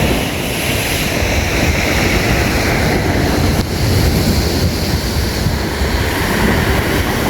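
Waves surging up a stony beach and washing back, with the rumbling of the stones as the water rolls them. Wind buffets the microphone.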